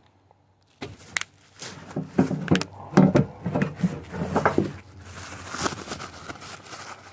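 Plastic bubble wrap crinkling and rustling as hands pull a wrapped part free, with scattered clicks and taps of handling.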